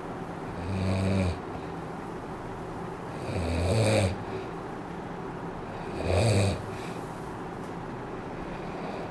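A sleeping person snoring: three loud snores about a second long, spaced roughly two and a half to three seconds apart, over a steady hiss.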